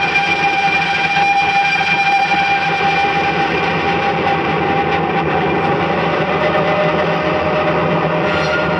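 Loud, dense, steady drone of noise with a few held tones, played live on keyboard and electronics; one held tone slowly sinks in pitch.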